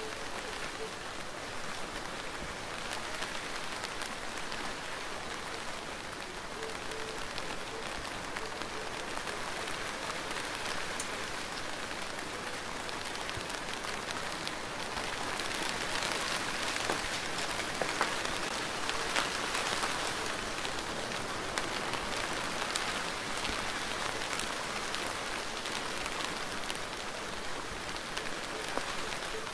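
Steady rain falling, an even hiss dotted with sharper drop taps. It gets a little heavier about halfway through, then settles back.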